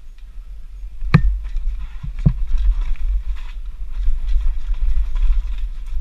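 Downhill mountain bike riding over rock ledges: two sharp knocks of tyres and suspension hitting rock, about a second in and again a second later, then steady rattling and chatter from the bike over rough rock, under a constant rumble of wind on the camera microphone.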